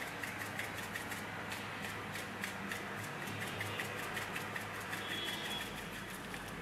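Light, irregular clicking and tapping, several clicks a second, as a small plastic container of asafoetida powder is shaken and tapped over a bowl of flour. A steady low electrical hum runs underneath.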